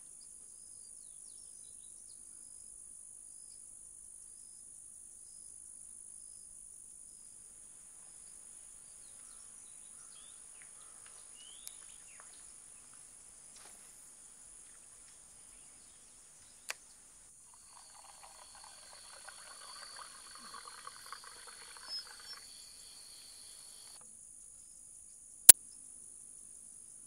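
A steady, high-pitched chorus of crickets and other insects. In the second half a spinning fishing reel is cranked for several seconds with a fine rattle, and near the end there is a single loud sharp snap.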